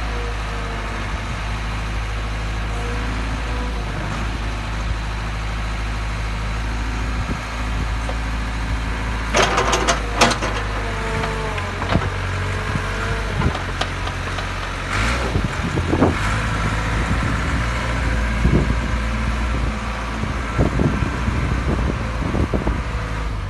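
Caterpillar 428 backhoe loader's diesel engine running steadily as the machine moves off. About ten seconds in and again around fifteen seconds in, a few sharp clicks and short squeals break through.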